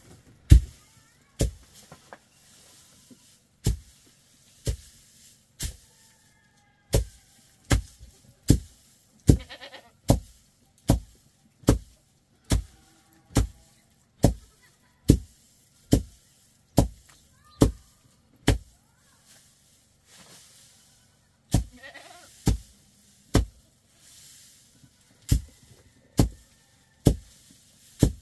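Repeated sharp knocks, roughly one a second, with a pause of about three seconds two-thirds of the way through. Faint bleating sounds in the background.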